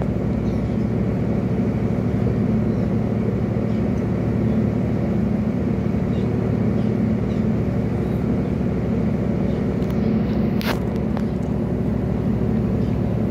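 Steady low drone of a large ship's engines heard from its deck, an even hum that holds unchanged throughout. A single sharp click about ten seconds in.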